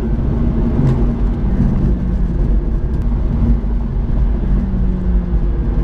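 McLaren 650S twin-turbo V8 running while the car is driven along at a fairly steady speed. The engine note wavers only slightly in pitch, over a steady rush of road noise.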